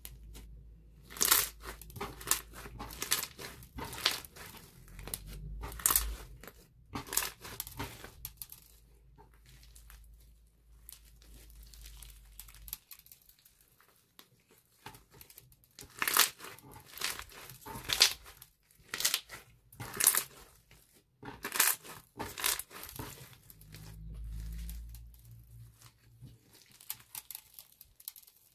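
Hands squishing, folding and stretching a sticky black slime with beads mixed in. It makes clusters of wet, crackling clicks and pops, busiest twice, with quieter stretches of softer squishing between.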